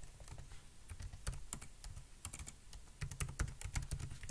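Typing on a computer keyboard: a run of irregular key clicks, coming thickest near the end.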